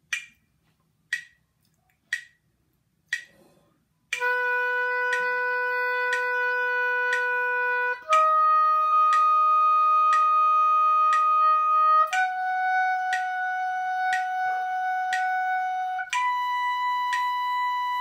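Oboe playing the B major arpeggio upward in whole notes (B, D sharp, F sharp, then the B an octave up), each note held steadily for about four seconds. A metronome at quarter note = 60 gives four count-in clicks, then keeps ticking once a second under the notes.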